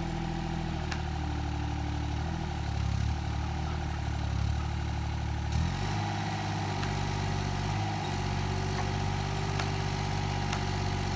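An engine running steadily at a low, even note, which changes about five and a half seconds in.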